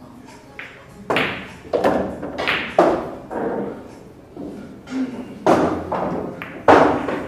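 Sharp clacks of carom billiard balls and cue, several in a row, each with a short echo in the hall. Among them, about five and a half seconds in, the player's cue drives the cue ball into the red ball.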